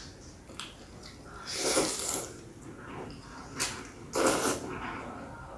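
A person slurping instant noodles from soup, two long slurps, the first about a second and a half in and the second about four seconds in, with a short click just before the second.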